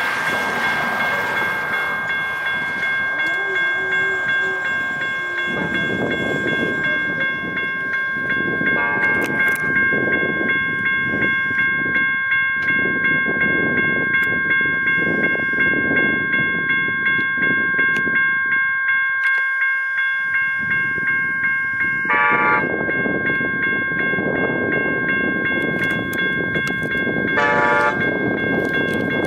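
Electronic railroad crossing bell (General Signals Type 1) ringing steadily as the crossing activates for an approaching train. An Amtrak train horn sounds briefly about two-thirds of the way through and again near the end.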